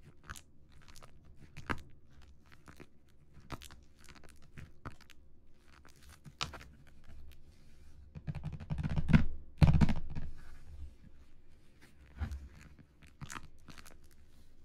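Fingertips tapping, scratching and rubbing on a plastic-wrapped cardboard box, the shrink wrap crinkling: scattered light taps and crackles, with a louder burst of gripping and crinkling about eight to ten seconds in.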